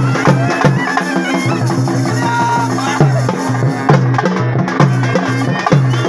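Loud traditional folk music with drums beating a fast, even rhythm of about three strokes a second over a steady low hum, and a wavering melody above it.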